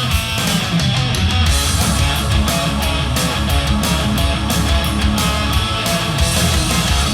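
Recorded rock music with guitar and a steady drum beat, played back through a hi-fi DAC for a listening comparison.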